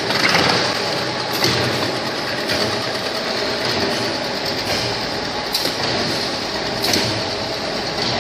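Automatic can-packaging line running steadily: conveyor and rotary can-seaming machinery whirring, with a few sharp mechanical clicks at irregular intervals.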